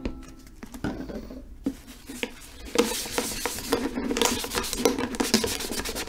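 Rapid, continuous scratching and rubbing on hard plastic as a printed design is scraped off the outside of a plastic yogurt bucket. It starts in earnest about three seconds in, after a few faint handling knocks.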